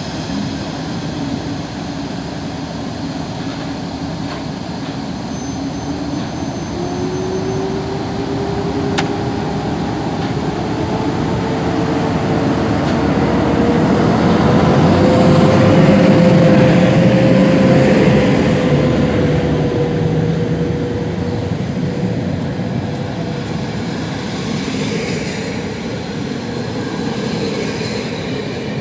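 PKP Intercity EP09 electric locomotive and its passenger coaches running along the platform. It is loudest about halfway through as the locomotive draws level, with a whine that rises in pitch and then holds steady as the coaches roll past.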